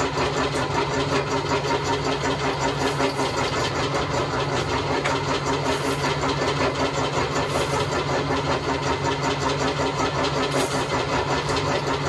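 Homemade wire stripper, a modified sheet-metal roller driven by a motor through a belt, running steadily with a constant hum while it strips insulated copper wire.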